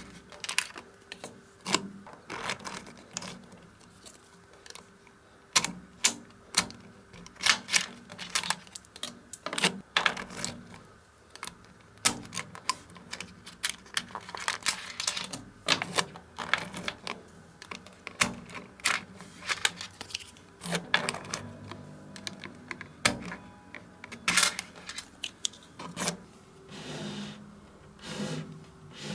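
Small magnetic balls clicking and snapping against each other as a stiff card is worked between their rows to split them off a block. The clicks are sharp and irregular, several a second, some louder than others.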